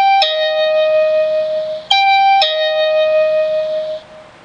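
Electronic two-tone "ding-dong" chime from a wireless PIR welcome doorbell alarm, played twice about two seconds apart: each time a short higher note followed by a longer lower note that fades out.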